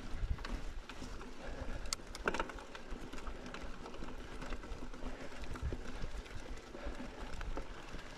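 Mountain bike rolling over rough ground: a steady low rumble with scattered rattles and clicks from the bike, and two sharper knocks about two seconds in.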